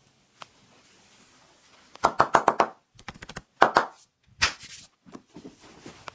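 Hands striking a person's body in quick percussive massage: a fast run of about seven slaps, a few lighter taps, then two louder single strikes.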